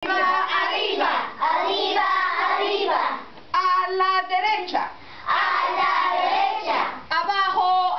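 A group of young children singing a chant together in Spanish, in short phrases with brief pauses between them.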